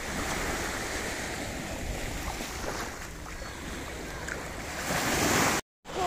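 Small waves breaking and washing up the shore in a steady surf. The surf swells louder near the end, then cuts off abruptly.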